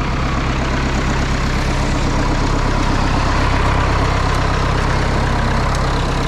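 Farm tractor's engine running steadily.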